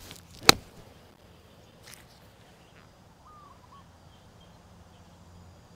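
A single crisp strike of a golf club hitting the ball off the turf on a pitch shot, about half a second in.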